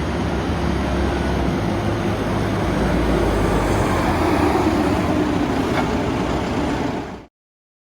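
Lonking 84C backhoe loader's 100 hp Perkins diesel engine running steadily; the sound cuts off abruptly about seven seconds in.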